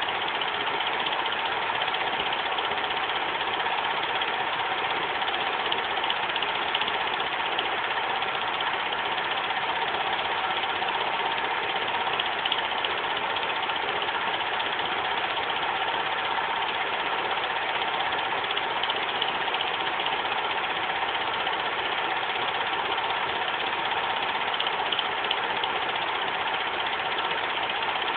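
Bell & Howell dual 8 movie projector running Super 8 film: a steady mechanical whirr of motor and film transport, unchanging throughout.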